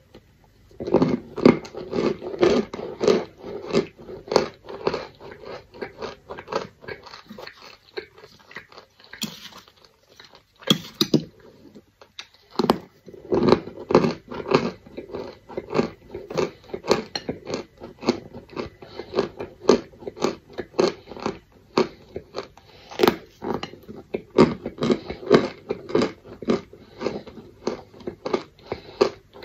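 Close-up chewing and biting of chalky corn starch chunks: a dense, rapid run of crisp crunches. There is a gap of a few seconds with only scattered crunches about a third of the way in.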